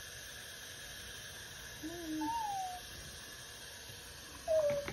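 Small dog whining: a short high whine that falls in pitch about two seconds in, and a louder one near the end.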